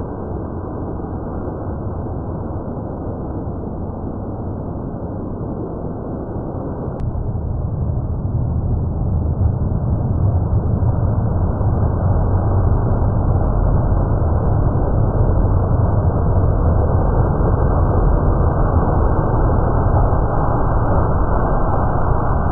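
Thunderstorm sound slowed to one-tenth speed, heard as a deep, steady rushing rumble that grows louder about eight seconds in.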